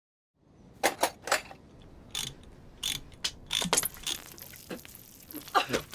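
Socket ratchet wrench clicking in short, uneven bursts as it works a bolt on a motor scooter, with occasional knocks of metal tools; it starts about half a second in.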